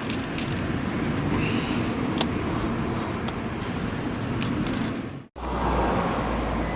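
Steady outdoor background noise of road traffic, with a few faint clicks. About five seconds in it cuts out sharply and comes back with a deeper low rumble.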